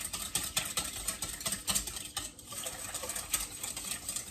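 Wire whisk beating a thin liquid sauce in a stainless steel mixing bowl: a fast, uneven run of clicks and scrapes of wire on metal.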